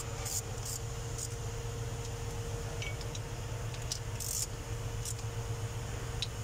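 Ratchet wrench tightening water pump bolts: a handful of short, sharp metallic clicks at irregular intervals, over a steady low hum.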